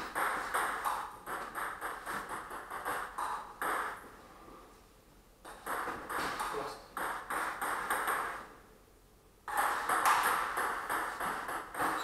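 Table tennis ball clicking rapidly off the bats and the table in three rallies, each a few seconds long, with short pauses between them.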